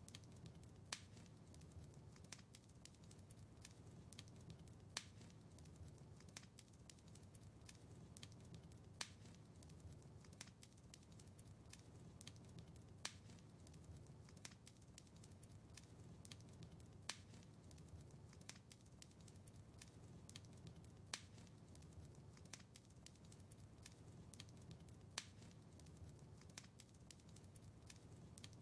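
Wood fire crackling faintly: many small, sharp crackles over a low, steady rumble of flames, with a louder pop about every four seconds.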